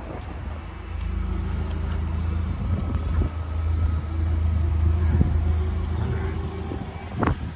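Propane forklift engine running as the truck drives up with a loaded pallet, its low hum growing louder as it nears, with a few knocks, the loudest near the end.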